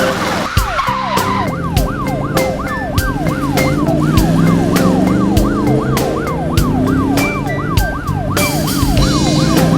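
Siren sound effect: a fast wail that sweeps up in pitch and drops back about three times a second, over background music.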